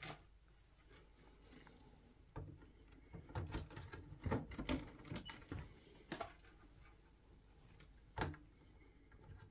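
Hands working power-supply cable connectors onto a motherboard inside a steel PC case: a run of soft clicks and knocks, then a single sharper knock near the end.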